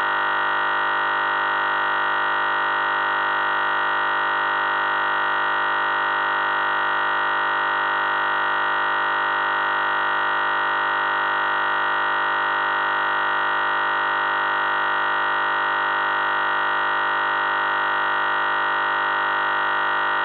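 A steady electronic tone, rich in overtones and strongest in the mid-high range, held without any change in pitch or level.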